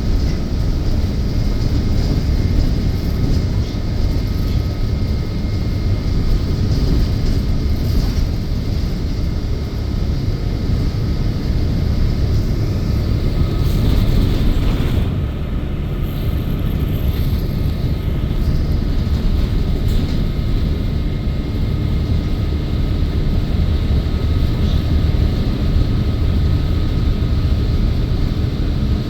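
City bus in motion, heard from inside the cabin: a steady engine and road rumble with a faint steady whine above it.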